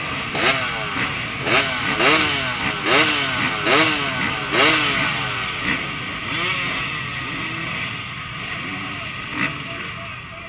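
Dirt bike engines revved in quick repeated blips, each rev rising and falling in pitch, more than one a second. The blipping thins out and gets quieter after about five seconds.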